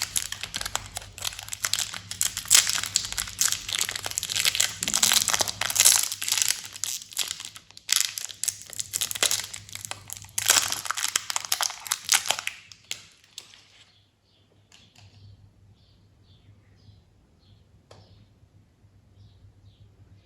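Candy wrappers and packets being crinkled and torn open by hand, a dense crinkling for about the first thirteen seconds. After that it dies down to a few faint taps and clicks.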